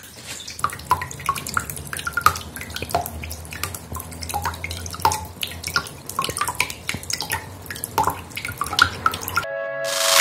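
A thin stream of water pouring and splashing into a basin of water, with irregular drips and plops off the spinning blades of a small homemade waterwheel. Near the end this cuts to a short rising whoosh.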